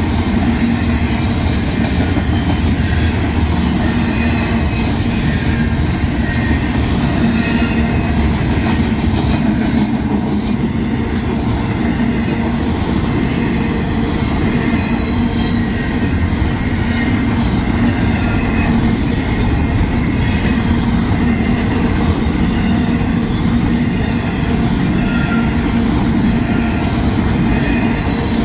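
Union Pacific intermodal freight train's cars rolling steadily past at about 30 mph, a continuous loud rumble of steel wheels on rail.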